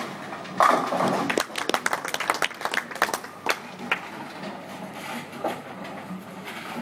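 Ten-pin bowling ball crashing into the pins about half a second in. The pins clatter for a couple of seconds, then a few scattered knocks follow.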